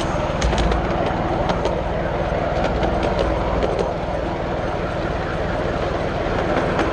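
Miniature train rolling along 7¼ inch gauge track: a steady rumble of steel wheels on the rails with irregular sharp clicks as they pass over rail joints.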